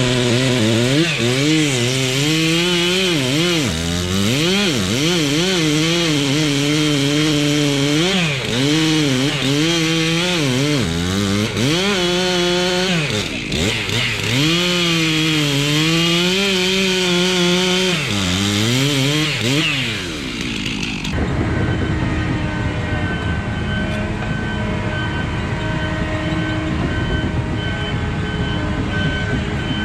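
Stihl two-stroke chainsaw cutting into a large pine, its pitch dropping as it bogs in the cut and rising again as the operator revs it, over and over for about twenty seconds. It then gives way abruptly to a steady rushing noise with faint high tones.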